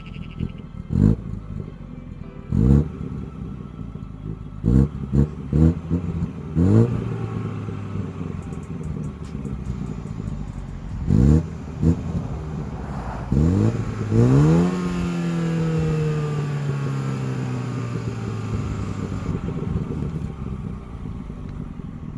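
Stock Mini Cooper S's turbocharged four-cylinder engine and twin centre exhaust, stationary, given repeated short, sharp throttle blips. Each one rises quickly in pitch and drops straight back to idle, some coming in quick clusters. About two-thirds through, a longer rev is held and its pitch then falls slowly back toward idle.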